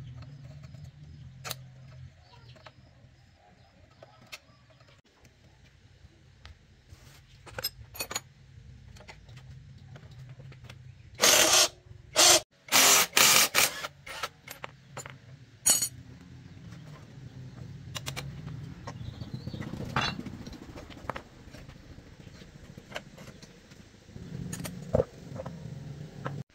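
Cordless impact wrench hammering in several short bursts about halfway through, loosening the motorcycle's rear axle nut to take the wheel off. Metal hand tools clink and knock against each other now and then before and after.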